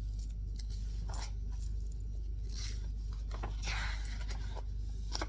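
Faint rustles and a few small clicks, like light handling, over a steady low hum.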